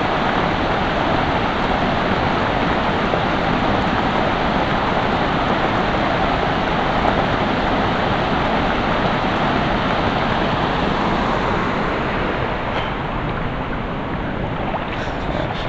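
A small waterfall pouring into a creek pool: a steady rush of falling water, easing off a little near the end.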